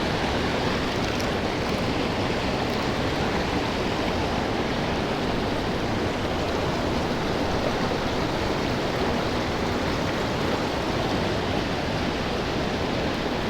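A small creek's water flowing steadily, an even rushing wash with no change throughout.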